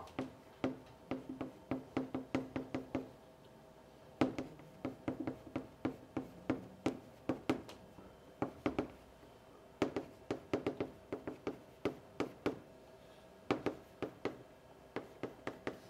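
Chalk tapping on a blackboard stroke by stroke as Chinese characters are written: quick runs of sharp taps broken by short pauses, the longest about a second, around three seconds in.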